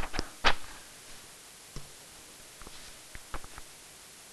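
Computer mouse clicking, paging through slides: three sharp clicks in the first half second, the loudest about half a second in, then a scatter of fainter clicks from about two to three and a half seconds in, over a faint steady hiss.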